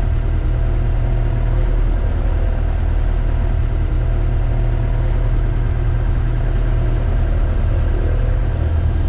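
Light sport aircraft's piston engine idling steadily just after start-up.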